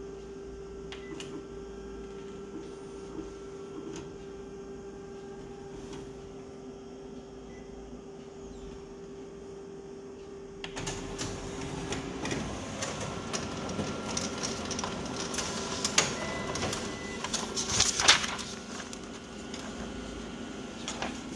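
Konica Minolta Bizhub C224 copier at work: a steady hum with a held tone while it scans the second side of the ID card. About ten seconds in, this gives way to louder whirring and clicking as the print engine feeds and prints the copy, with two sharp clacks near the end.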